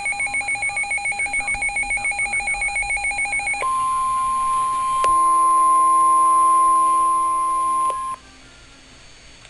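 Emergency Alert System tones on NOAA Weather Radio: a rapidly pulsing electronic alert tone, then from about three and a half seconds in a steady high single-pitch alarm tone, the 1050 Hz weather radio warning alarm, with a lower tone joining it for a few seconds. The alarm cuts off suddenly about eight seconds in, leaving a faint hum. The sequence announces a severe thunderstorm warning.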